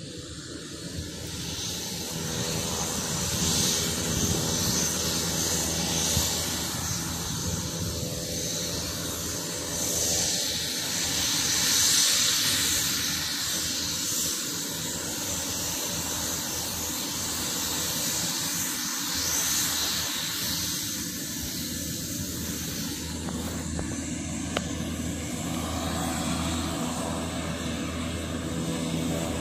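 N219 twin-turboprop aircraft's engines running as it taxis on the runway: a steady drone under a hissing turbine whine that swells and eases, loudest about a third of the way in.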